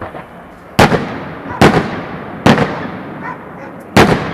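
Aerial firework shells bursting in the sky: four loud bangs roughly a second apart, each trailing off in a fading rumble.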